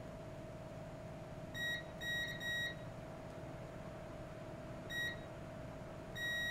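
TASI digital multimeter's continuity beeper sounding in short high beeps as the test probes touch points on a flight controller board: one about a second and a half in, two close together just after two seconds, one at five seconds, then a longer held beep near the end. Each beep signals that the probes have found a continuous, low-resistance path between the points being tested.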